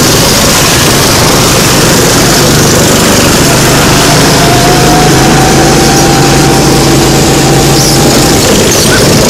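Small go-kart engines running loud and steady under throttle, with one kart's engine note climbing slightly and then holding through the middle.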